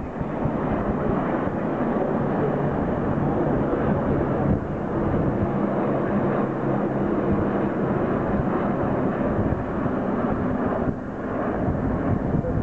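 Formation of military helicopters flying past overhead: a steady, dense drone of rotors and turbine engines.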